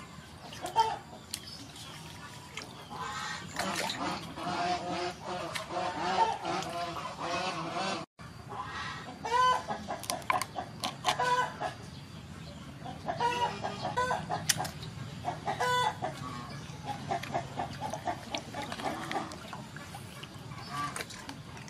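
Poultry clucking and calling in short repeated bursts, densest through the middle, over wet splashing and handling of a squid in a metal basin of water.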